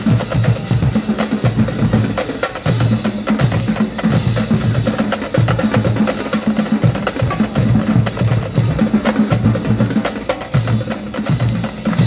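High school drumline playing a fast cadence on snare drums, multi-tenor drums and hand cymbals: a dense, unbroken stream of rapid drum strokes with deep drum hits.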